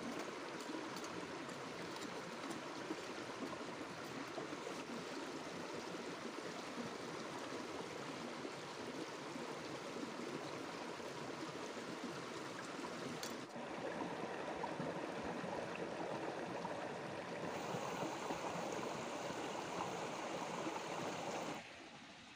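Shallow rocky stream flowing, a steady even rush of water, which drops away shortly before the end.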